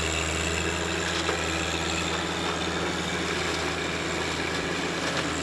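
John Deere 1025R subcompact tractor's three-cylinder diesel engine running steadily while it drives a PTO-powered offset flail mower.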